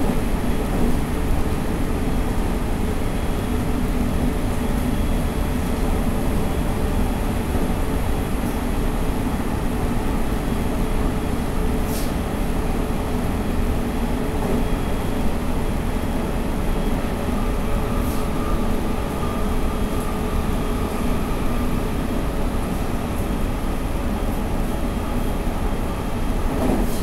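Running noise of a JR 313 series 2600-subseries electric multiple unit heard from inside the car while cruising between stations: a steady rumble of wheels on rail with a faint even hum over it. Two sharp clicks about twelve and eighteen seconds in.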